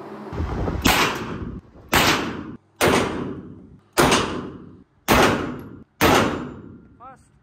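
Semi-automatic pistol fired shot after shot, about six shots roughly a second apart, each echoing and fading inside an indoor shooting range.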